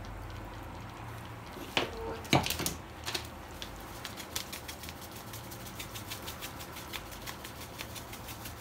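Two sharp knocks about two seconds in, then a spice mill being twisted: a long run of even clicks, about three a second, as the mince is seasoned with salt and pepper.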